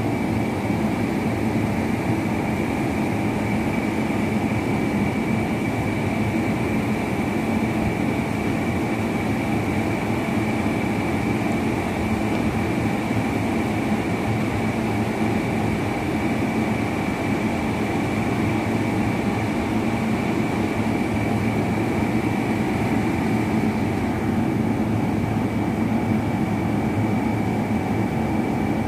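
Steady drone of running machinery: a constant low hum with a high, unchanging whine over it.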